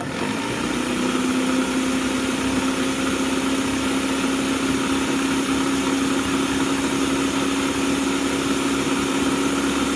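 Electric countertop blender running at speed, blending maple syrup, blueberries and cane sugar. It starts abruptly, rises briefly in pitch as the motor spins up, then holds a steady whine.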